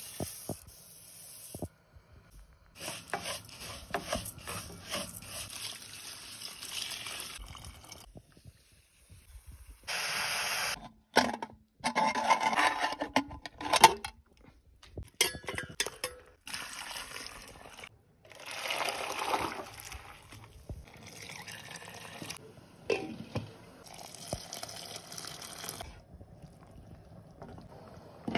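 A run of short cooking sounds broken by cuts: bulgur poured into hot oil in a pan, with frying noise, and a steaming pressure cooker being opened, with metal lids clattering.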